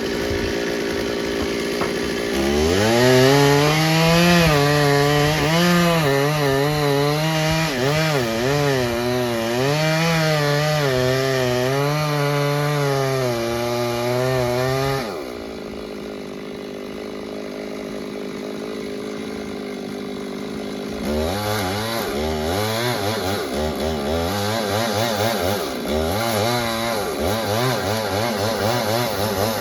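Two-stroke chainsaw cutting wood: from about two seconds in it runs at high revs with its pitch wavering under the load of the cut, drops back to a quieter idle about halfway, then revs up and cuts again near the end.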